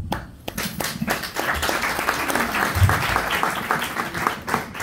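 Audience applauding, with dense clapping that starts at once and thins out near the end.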